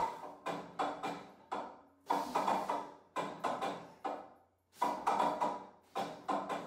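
Homemade cable-and-pulley lat-pulldown with a stack of weight plates on a loading pin, clanking and rattling in a burst with each pull down and each return of the bar, some with a short metallic ring.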